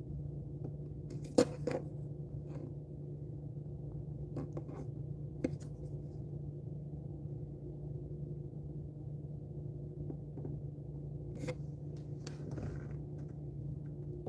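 Steady low room hum with a few light clicks and taps scattered through it, the sharpest about a second and a half in.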